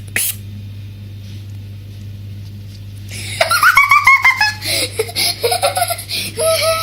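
A child laughing in a run of high-pitched giggles that starts about three seconds in, over a steady low hum.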